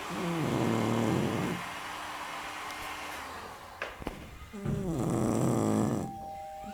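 Dog snoring: two long pitched snores about four and a half seconds apart, each dropping in pitch and then holding.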